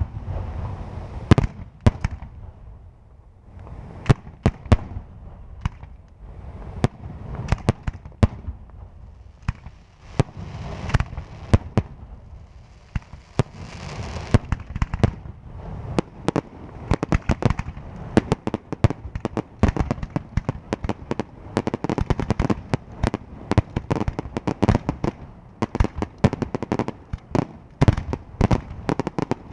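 Aerial fireworks shells bursting in sharp, loud bangs. Spaced out at first, they build from about halfway into a rapid, almost continuous barrage of reports.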